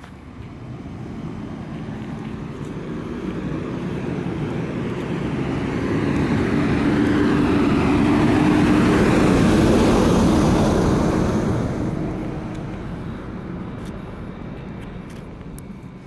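Fire engine driving past at close range: its diesel engine and tyres grow steadily louder as it approaches, peak as it passes about nine to ten seconds in, then fade as it moves away.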